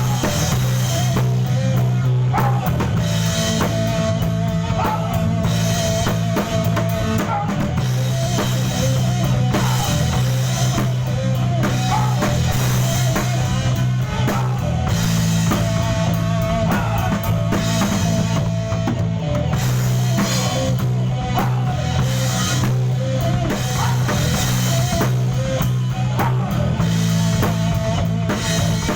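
A band playing rock music: drum kit with a steady beat and bass drum, over bass and guitar.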